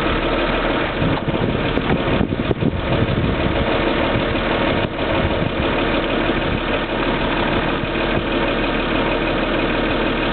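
Steady motor hum in a Land Rover Discovery 3, with a few light clicks about two seconds in.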